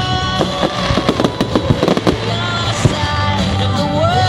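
Fireworks bursting and crackling, many sharp bangs in quick succession and thickest in the first two seconds, over loud music.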